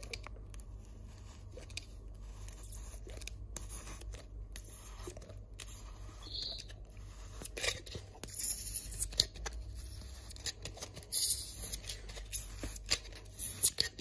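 A small glass jar pressed and twisted inside a cut hole in a black helmet part, its rim scraping against the hole's edge in short scratchy strokes that grow louder and more frequent in the second half. The rubbing marks where the edge of the hole sits too high.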